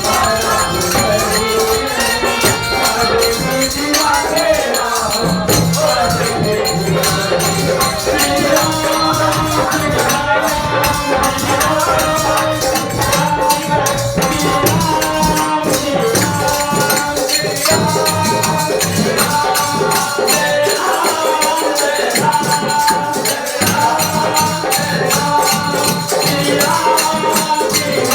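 Kirtan: devotional Hindu group singing with melodic held notes, over a steady, fast jingling rhythm from hand percussion such as a tambourine or rattles.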